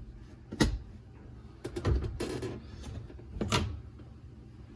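Dishwasher parts being handled and refitted: three separate clunks and clicks, one about half a second in, a short cluster around two seconds and another about three and a half seconds in.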